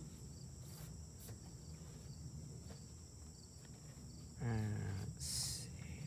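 Steady high-pitched chorus of crickets. About four and a half seconds in comes a brief low voice sound from a man, followed by a short hiss.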